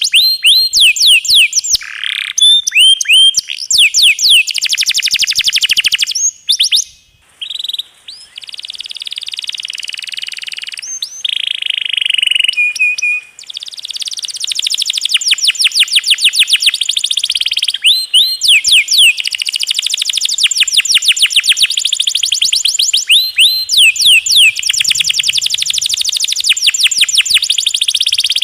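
Domestic canary singing long rapid rolls, fast runs of repeated sweeping notes, with a couple of brief pauses, over a faint added trickling-water effect.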